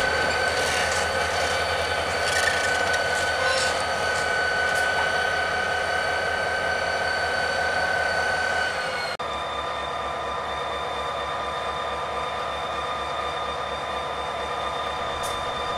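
EMD diesel-electric locomotives idling: a steady engine drone with constant high-pitched tones over it. The sound changes abruptly about nine seconds in.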